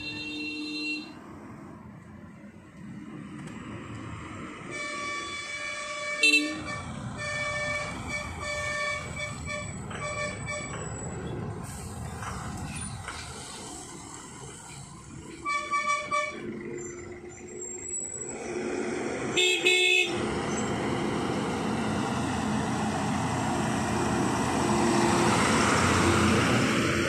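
Heavy vehicles' horns sounding at a hairpin bend over engine noise: a run of repeated honks from about five seconds in, then short blasts twice more. Near the end a bus engine grows loud as the bus climbs past close by.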